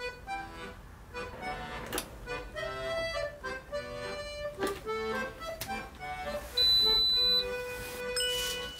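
Accordion music playing a tune. About two-thirds of the way in, a loud, high electronic beep sounds for almost a second, and a second, lower beep starts near the end.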